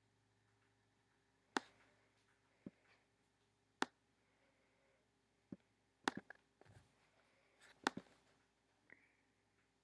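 Computer mouse clicking: about eight single sharp clicks at irregular intervals, with a pair close together about six seconds in.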